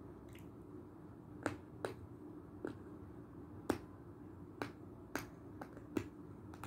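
Close-up crunching of Belgorodsky edible chalk being bitten: about nine sharp, dry snaps, spaced irregularly.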